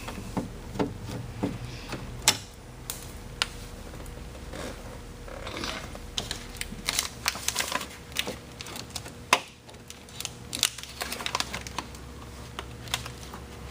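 Phillips screwdriver turning out the screw that holds a car's interior door handle in the door: irregular small clicks and ticks of the tool and the loosening handle.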